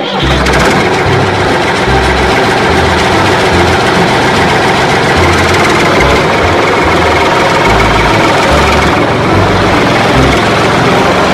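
Tractor engine running steadily and loudly, with an uneven low chug underneath.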